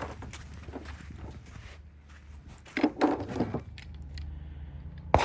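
Small metallic clicks and clinks from handling metal gear, with a louder cluster of clinks about three seconds in and a sharp click near the end, over a steady low hum.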